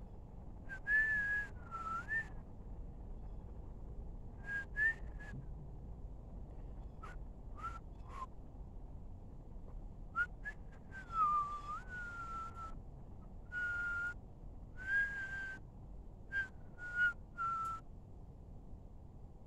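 A person whistling a tune in short phrases of sliding notes, with breath hiss on each note and pauses between phrases.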